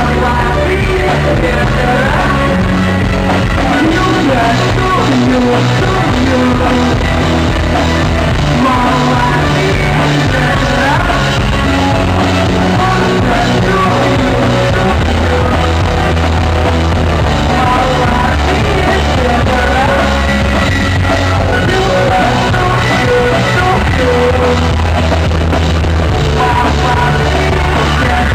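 Rock band playing live: a singer over distorted guitars, a bass line and drums, loud and steady throughout.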